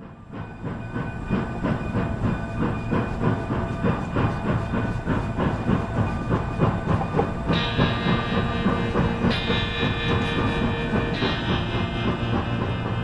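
Narrow-gauge steam train running, with the rhythmic clatter of the passenger cars on the rails. A high ringing tone joins about halfway through and comes three times in a row.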